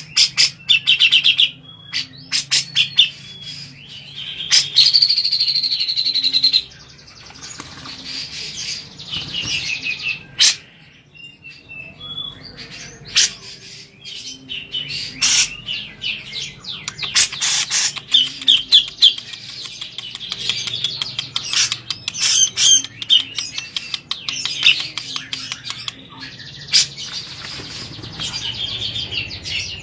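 Cucak jenggot (grey-cheeked bulbul) calling over and over while bathing: runs of quick chattering notes and short trills, with brief pauses between them.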